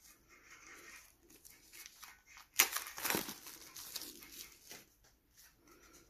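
Plastic shrink-wrap being torn off a deck of game cards and crinkled in the hands, with a sharp crackle about two and a half seconds in and quieter rustling around it.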